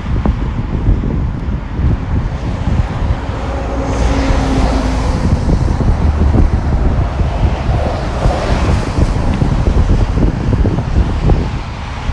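Wind buffeting the phone's microphone with a heavy rumble, while cars pass on a wet road; the tyre hiss swells about four seconds in and again around eight seconds.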